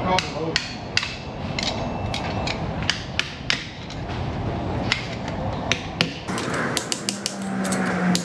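Hammer striking a punch held against a fitting on a removed turbocharger: a series of sharp metal taps, about two a second, coming quicker and lighter from about six seconds in.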